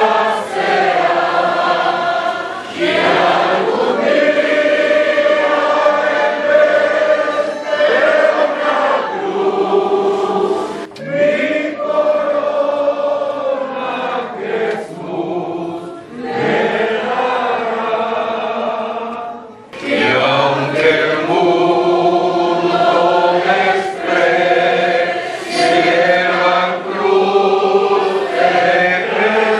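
A church congregation of men and women singing a hymn together from hymnals, in long held phrases with brief breaths between lines.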